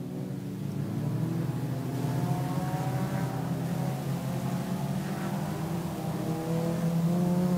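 Engines of several front-wheel-drive, four-cylinder sport compact race cars racing together on a dirt oval, a blend of engine notes drifting up and down, growing louder toward the end.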